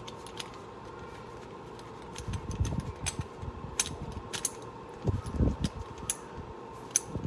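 Scattered light metal clicks and clinks of hand tools and parts being handled at a pickup's front wheel hub, with a couple of low bumps and a faint steady hum beneath.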